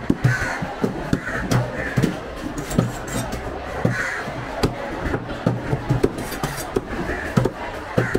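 Heavy cleaver chopping through a barracuda onto a wooden chopping block: sharp thudding blows at an irregular pace of about two a second.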